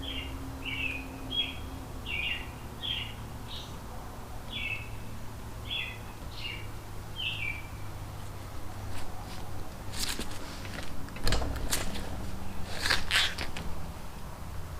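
A bird chirping repeatedly, about ten short falling notes less than a second apart, which stop about halfway through. After that come a few sharp clatters and rustles of parts being handled.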